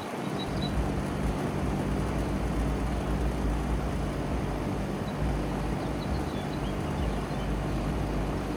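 A 2-ton OxBox central air conditioner's outdoor condensing unit running steadily: the compressor's low hum under the even rush of air from the condenser fan.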